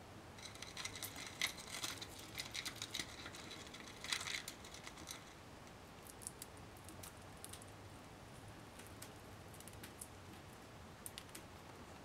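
A fallow parrotlet's beak picking and crunching at a foraging kabob toy: a quick run of small, crisp clicks and crackles for the first five seconds, then only scattered faint clicks.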